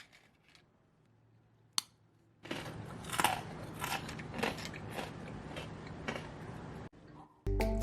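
Crisp, microwave-dried tofu pieces crunching in a dense run of sharp, crackly crunches lasting about four and a half seconds, preceded by a single click.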